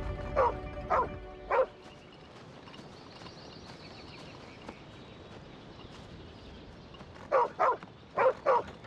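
Small dog barking: three barks about half a second apart, then after a pause two quick pairs of barks near the end.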